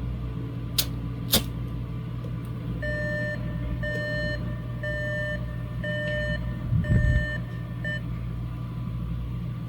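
Electronic alarm beeping from a phone's fire-alert app, signalling that a fire has been detected: about six half-second beeps a little under a second apart, the last one cut short. Before the beeping come two sharp clicks, and a low thump sounds near its end, over a steady low hum.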